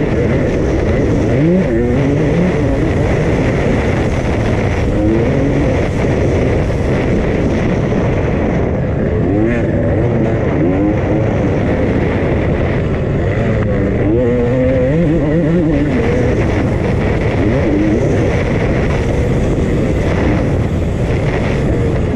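2001 Honda CR250's two-stroke single-cylinder engine being ridden hard, its pitch rising and falling again and again as the throttle is opened and closed.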